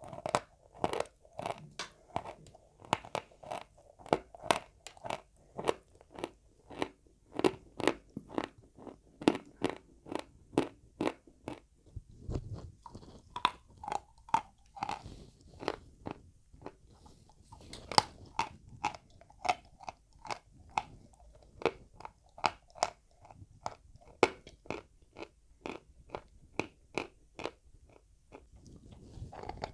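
Close-miked chewing of dry white chalk: a steady run of sharp, dry crunches, about two or three a second, with short pauses.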